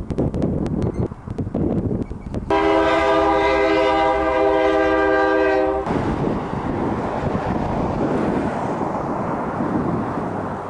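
Train rumbling past with clicking; about two and a half seconds in its horn sounds one long blast of several tones at once, lasting about three seconds and cutting off suddenly, and the rumble of the train carries on.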